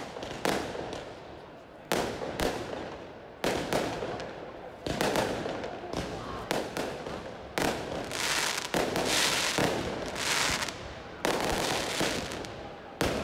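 Aerial firework shells bursting overhead: about ten sharp bangs, a second or two apart, with the hiss and crackle of the burning stars between them, busier and louder in the second half.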